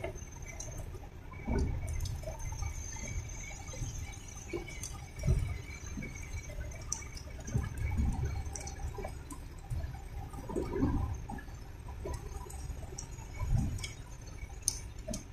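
Inside a car's cabin, rain and wet-road noise run on as a steady wash over a low rumble, while the windscreen wipers sweep back and forth. Irregular low thumps come every few seconds.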